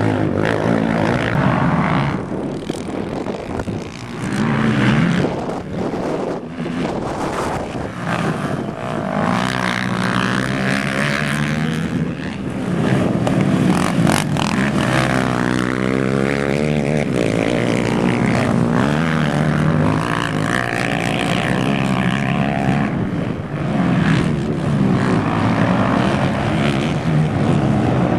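Racing quad (ATV) engines at high revs, the pitch rising and falling as they accelerate and ease off.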